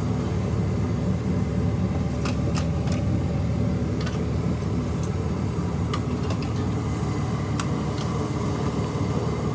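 Ford 6.4 L Power Stroke twin-turbo V8 diesel running at a steady idle with freshly installed turbos, a continuous low rumble. A few faint clicks come through over it.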